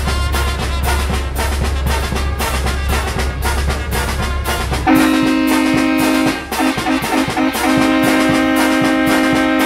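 Brass band music over a steady drum beat; about halfway in, trombones and trumpets come in with long held chords, broken briefly by a few short punched notes before holding again.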